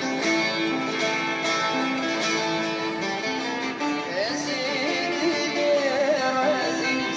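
Music: a plucked string instrument plays a melody, and about four seconds in a singing voice comes in with a wavering, ornamented line.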